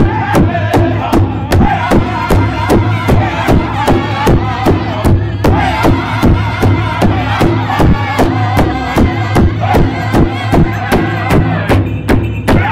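Powwow drum group singing over a large hide drum that several men strike in unison with a fast, steady beat. The high-pitched voices break off briefly near the end while the drum carries on.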